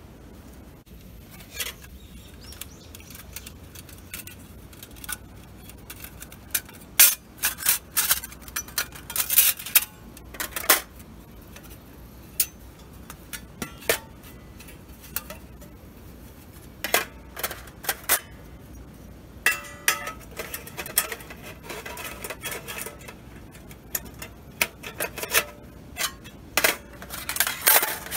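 Thin stainless steel panels of a folding camp stove clinking and clicking together as the stove is unpacked and assembled on a camp table. The clicks come irregularly and in clusters, a few with a short metallic ring.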